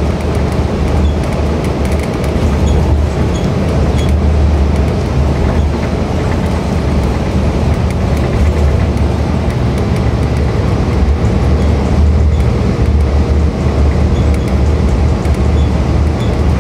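2013 Gillig Low Floor 35-foot transit bus driving along, heard from inside the passenger cabin: a steady low engine and drivetrain drone with road noise.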